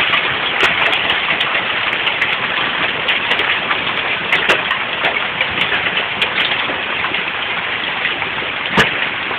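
A heavy downpour of rain and hail: a dense, steady hiss of rain on a wooden deck and lawn, with many sharp ticks of hailstones striking. A louder knock comes near the end.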